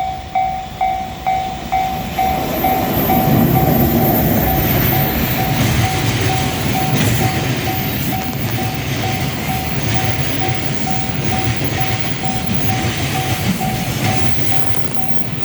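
Japanese level-crossing warning bell ringing at about two strokes a second, while a container freight train runs through the crossing. The train's rumble and wheel clatter build about two seconds in and then dominate, with the bell still ringing underneath.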